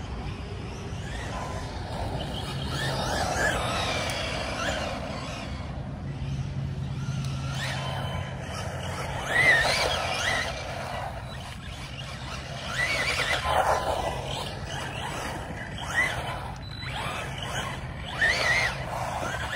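Arrma Senton RC short course truck's electric drive whining up and down in pitch again and again as it accelerates and slides on asphalt, with tyre squeal from its nearly bald Duramax Speedtreads street tyres; the loudest burst comes about halfway through.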